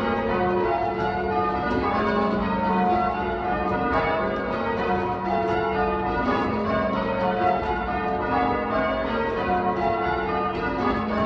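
A ring of eight church bells (a 14 cwt eight tuned to F sharp, mostly Taylor castings) rung in call changes: each bell strikes in turn, row after row, in a steady, even rhythm, with the notes ringing on over one another.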